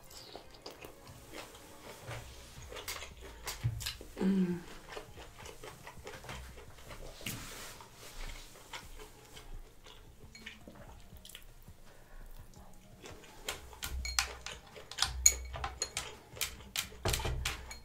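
Close-miked eating of seafood: quiet chewing and mouth sounds with scattered small clicks, and a brief low hum about four seconds in. From about fourteen seconds in comes a quicker run of sharp clicks and taps as shells and glass bowls on the table are handled.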